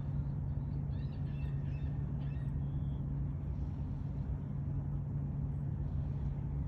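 A steady low engine hum, with a few faint high chirps about one to three seconds in.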